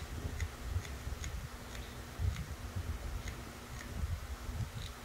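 Faint, regular ticking, about two ticks a second, over a low rumble.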